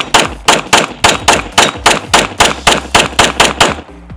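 Glock 19 Gen 4 9mm pistol fired as fast as the trigger resets: a rapid string of about fifteen shots at roughly four a second, emptying the magazine in about four seconds.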